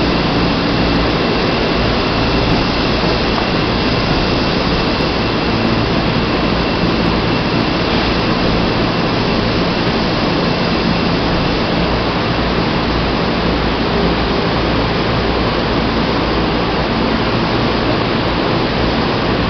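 Steady hum and rushing noise of a Seibu New 2000 series electric train standing with its equipment running, with a faint steady high-pitched tone over it.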